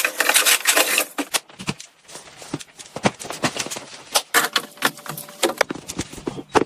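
Irregular clicks and knocks of small hard objects being handled, with a stretch of rustling in the first second.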